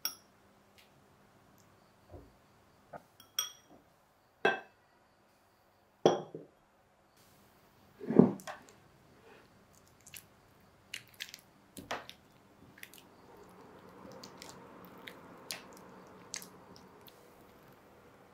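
A silicone spatula working thick cream cheese in a glass mixing bowl: a series of separate sharp clinks and knocks against the glass, the loudest about eight seconds in, then lighter taps and a soft squishy stirring sound near the end.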